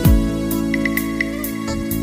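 Electronic music: sustained synth chords with a deep kick drum at the start and a quick run of four short high notes about a second in.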